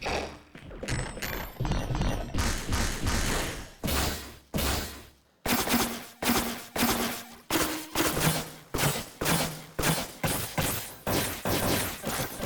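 A quick run of designed, pitched-down impact sound effects triggered one after another from a layering sampler. Each hit starts sharply and dies away, about two a second and faster in the second half, and a few carry a brief low hum-like tone.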